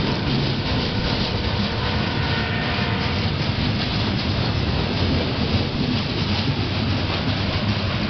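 Freight cars rolling past at close range: the steady noise of steel wheels running on the rails under a string of centerbeam flatcars and covered hoppers.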